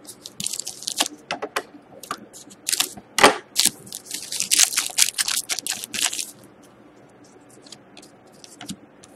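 Foil wrapper of a 2013-14 Panini Titanium hockey card pack crinkling and being torn open by hand. A dense run of sharp crackles lasts about six seconds, followed by a few light clicks.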